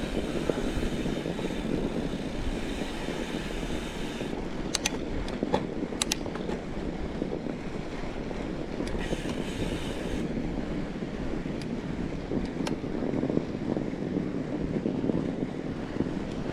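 Fat bike riding along a snowy trail: a steady rumble of tyres rolling over snow mixed with wind on the microphone, with a few sharp clicks and rattles around the middle and one more later on.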